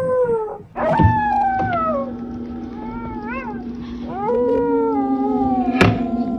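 A cat yowling in two long, drawn-out calls that slide slowly down in pitch, with a quieter wavering call between them, over a steady low hum.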